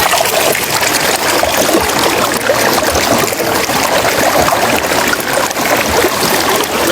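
Steady splashing and trickling of running water.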